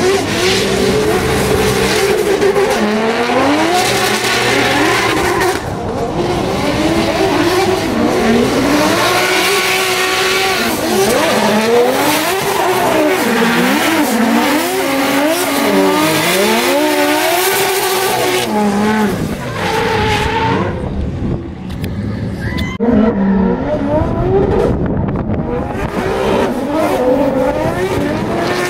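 Drift cars sliding in tandem, their engines revving up and down over the hiss and squeal of spinning tyres. About two-thirds of the way through the tyre noise drops away for a moment, then the engines climb again.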